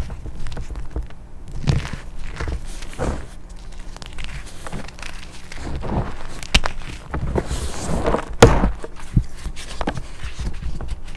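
Crunchy chalk covered in black paste being crushed by hand: irregular crunches and cracks of uneven strength, with the loudest crack about eight and a half seconds in.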